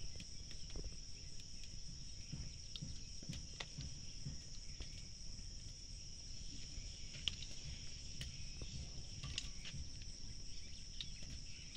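Steady high-pitched drone of insects such as crickets, with faint scattered clicks and knocks.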